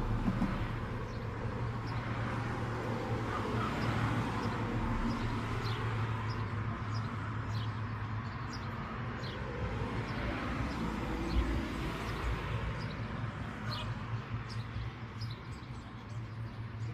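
Small birds chirping: many short, high, falling chirps, scattered irregularly, over a steady low rumble.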